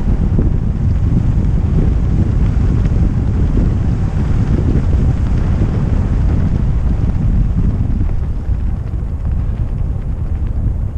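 Steady, loud wind rush buffeting the action camera's microphone, from the speed of a kick scooter (footbike) coasting fast downhill.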